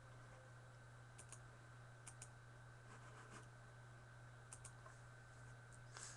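Faint computer clicks, mostly in quick pairs, heard three times or so, over a steady low electrical hum.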